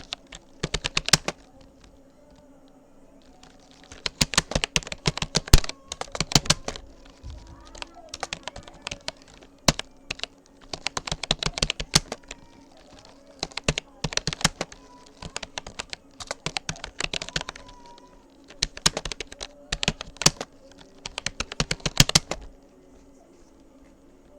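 Rapoo computer keyboard being typed on: bursts of rapid keystrokes with short pauses between words and phrases. The typing stops near the end.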